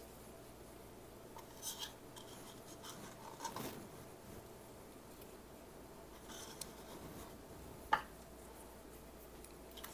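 Quiet kitchen with faint handling sounds as a small wooden pepper container is picked up and fiddled with: a few soft rustles and light clicks, and one sharper click about eight seconds in.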